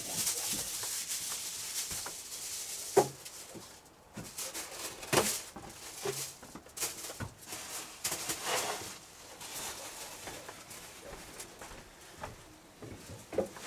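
Aluminium foil being pulled off the roll and handled, crinkling in crackly rustles, with a sharp click about three seconds in.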